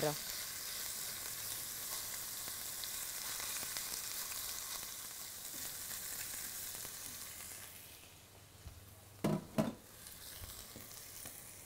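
Beef fillet pieces searing in very hot vegetable oil over high heat, a steady sizzle that drops away suddenly about eight seconds in. Two short knocks follow just after nine seconds, then a fainter sizzle.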